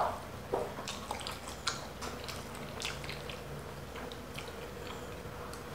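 Quiet eating: chewing spaghetti, with scattered small clicks of a fork against a plate.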